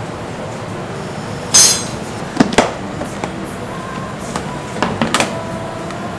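Plastic clip-lock food container being opened and handled: a loud plastic clatter about a second and a half in, then sharp clicks of the latches and lid, and metal tongs clinking against the box near the end.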